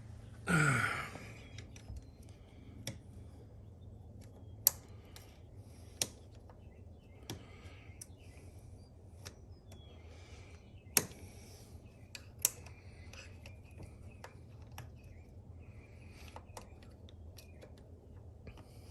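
Sharp metallic clicks and light scraping of a tool working a wire retaining ring out of a motorcycle rear shock body. The clicks come irregularly, a few seconds apart, after a short sound falling in pitch near the start.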